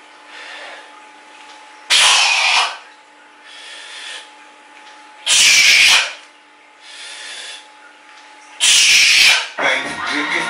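A man's forceful breathing under a 100 kg barbell during squat reps: a loud, hissing exhale about every three seconds, three times, with quieter inhales between. Music begins near the end.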